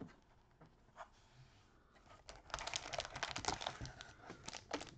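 Wrapped trading-card packs crinkling and rustling as gloved hands lift them out of a cardboard hobby box. Quiet for the first two seconds, then a dense run of crinkles.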